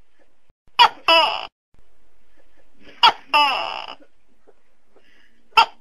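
Tokay gecko calling its two-note "to-kay": a short sharp first note, then a longer note that falls in pitch. The call comes twice, and a third starts near the end.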